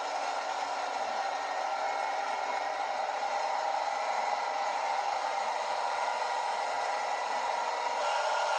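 M113A1 armoured personnel carrier's Detroit Diesel 6V53 engine and tracks running steadily as it drives, heard from on board: a steady hum with a hiss over it, a little louder near the end.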